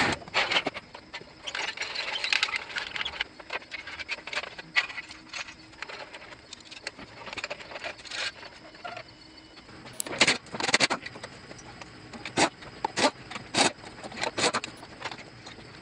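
Irregular metallic clanks, clinks and chain rattles as a shop engine hoist is moved into place and its lifting chain is handled over the engine bay, with the sharpest clanks coming in a cluster in the second half.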